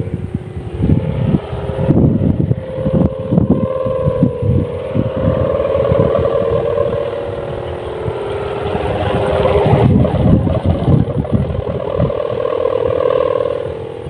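Bamboo bow hummer (sendaren) on a flying kite humming in the wind: a wavering drone with a fainter higher overtone, dipping briefly about two-thirds of the way through and then swelling again, over irregular low buffeting.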